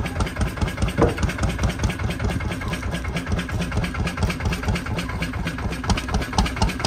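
Fishing boat's engine idling with a rapid, even pulsing.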